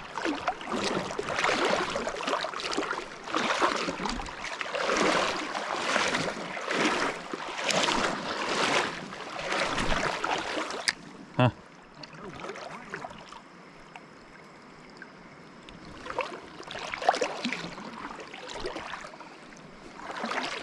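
Legs wading through a river, the water swishing and splashing in repeated surges about once a second or two. The surges ease off for a few seconds past the middle, then start again near the end.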